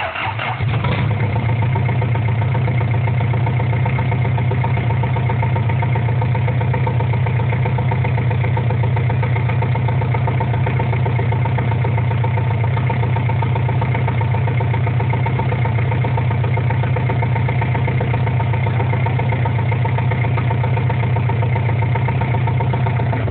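Isuzu C190 four-cylinder diesel engine running steadily at idle.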